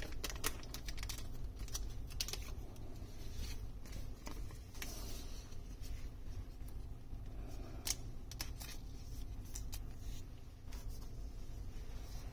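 Handling of a foil trading card and a clear plastic card sleeve: the card being worked into the sleeve, with scattered small clicks and taps on the table and brief soft plastic rustles.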